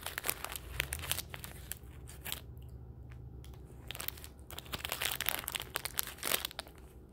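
Plastic snack wrapper crinkling and crackling as it is handled and opened, with a short lull about two and a half seconds in.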